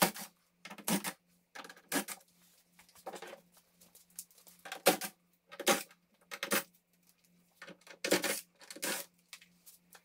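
Scattered short clicks and light metallic clinks, about a dozen, as casing screws and a cordless drill are handled while a portable air conditioner's shell is unscrewed. A faint low steady hum lies underneath.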